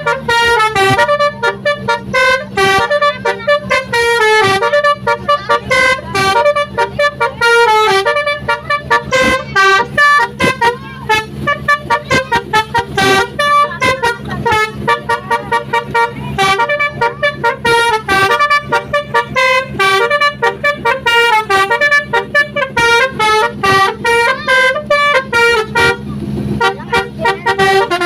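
Basuri multi-tone 'telolet' bus horn playing a quick, continuous tune of short pitched toots that jump up and down, over a steady low drone.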